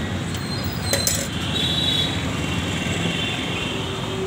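Steady roadside traffic rumble, with a sharp click about a second in.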